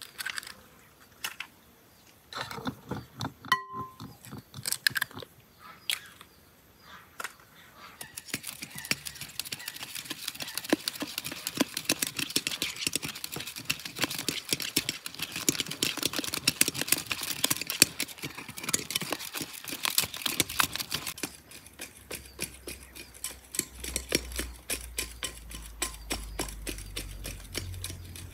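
A coil whisk beating thin, milky batter in a glass bowl: rapid clicking and swishing of wire against glass, strongest from about 8 s to about 21 s. Before that come scattered clinks. Near the end the clicking goes on more quietly over a low rumble.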